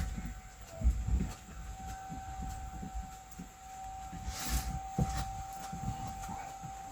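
Cloth rubbing and handling knocks as a vinyl-wrapped speaker cabinet is wiped clean, with a short hiss about four and a half seconds in. A steady thin whine runs underneath.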